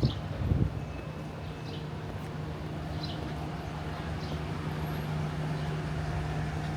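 Steady low engine hum over traffic noise.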